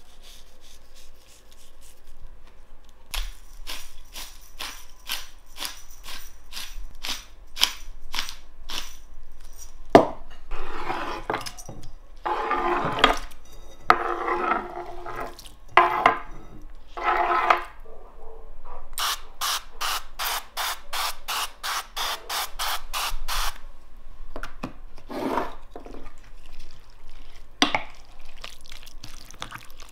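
Food prep at a wooden cutting board: a run of sharp ticks, then a knife scraping and pushing oiled chopped vegetables across the board while oil drips off it. Near the end there are short sprays from an olive-oil spray can.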